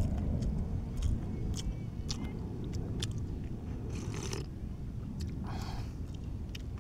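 A person slurping broth from a bowl of raw shellfish and chewing, with wet clicks and two short slurps about four and five and a half seconds in, over a steady low rumble.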